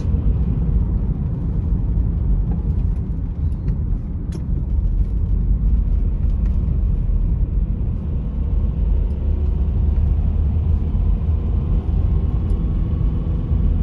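Car driving at steady speed: a continuous low rumble of engine and tyre road noise, heard from inside the cabin.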